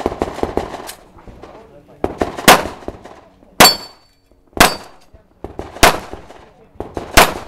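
Pistol shots at steel targets: a quick cluster of quieter pops in the first second, then loud single shots roughly once a second, several followed by a brief high ringing clang of struck steel plate.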